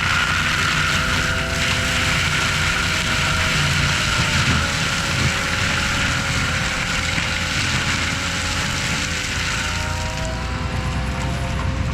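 An ASV RT-120F compact track loader running a TMC Cancela forestry mulcher: a steady, loud machine drone with a low rumble and a whine whose pitch drifts slightly, as the mulcher drum spins.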